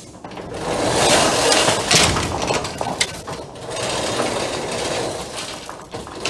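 Corrugated metal roll-up door rattling as it is raised on its chain hoist, with sharp clanks about two and three seconds in.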